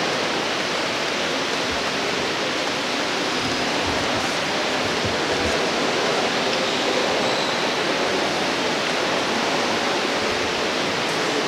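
A steady, even rushing hiss with a few faint low thumps.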